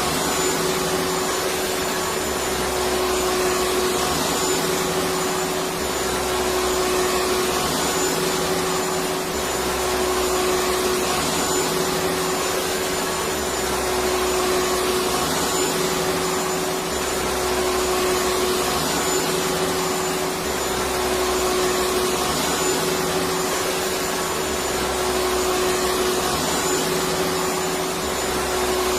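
Electric vacuum cleaner running steadily: a constant rushing noise with a steady motor hum, and a low throb that repeats every couple of seconds.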